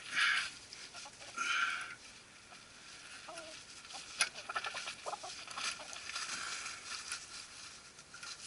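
Hand tools working metal on a truck's steering linkage, likely pliers on the cotter pins of the joints. Two short squeaky scrapes in the first two seconds, then a scattered run of light metallic clicks and ticks.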